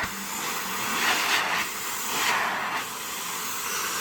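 Central vacuum running, air rushing through the hose and telescopic wand in a steady hiss that swells and eases a little. An uncovered hole lets air leak in and weakens the suction.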